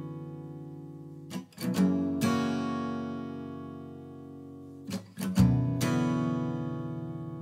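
Background music: acoustic guitar strumming chords, a few quick strums about a second and a half in and again about five seconds in, each chord left to ring out and fade.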